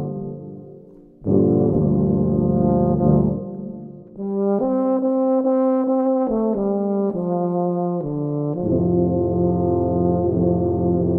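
Euphonium and tuba ensemble playing sustained low chords. A chord fades out, a new low chord enters about a second in, a higher passage of shorter moving notes follows in the middle, and a full low chord returns near the end.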